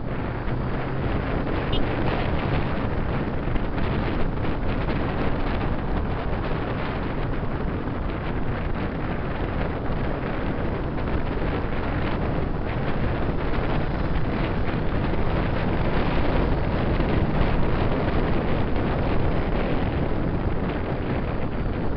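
Wind rushing over the microphone of a camera on a moving motorcycle: a steady, even roar, with the motorcycle's engine and road noise underneath.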